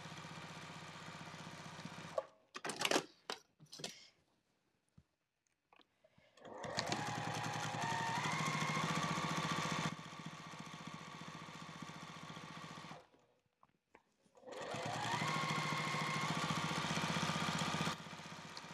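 Electric sewing machine topstitching along a zipper in two long runs, its motor whine rising in pitch as it speeds up at the start of each run and then holding steady. Between the runs come a few sharp clicks and a short pause.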